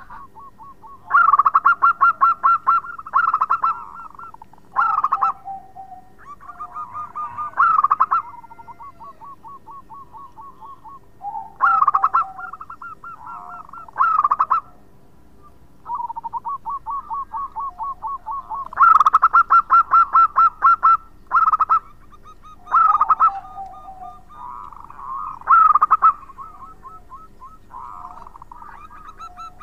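A caged zebra dove (perkutut) singing persistently: repeated song phrases of rapid staccato cooing, loud stuttering bursts alternating with softer rolling runs of coos, a new phrase every few seconds.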